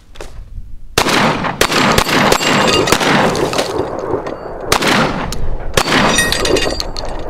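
Beretta 1301 Tactical 12-gauge semi-automatic shotgun firing several shots in two quick groups, about a second in and about five seconds in, with the steel target plates ringing after the hits.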